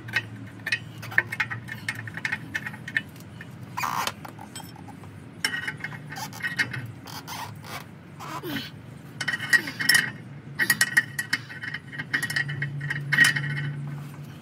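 Ratchet wrench on an extension turning the screw of a torsion bar unloading tool, with irregular clusters of metallic clicks and clinks.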